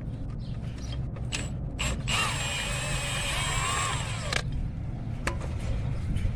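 A hand wrench turning one of the alternator mounting bolts on a Honda Civic. First come a few light metal clicks, then a creaking squeal of about two seconds as the bolt turns, which stops abruptly.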